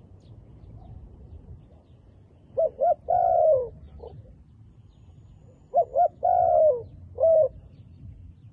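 Spotted dove cooing: two call phrases about three seconds apart, each two quick short notes followed by a longer coo that falls in pitch, the second phrase ending with one more short note.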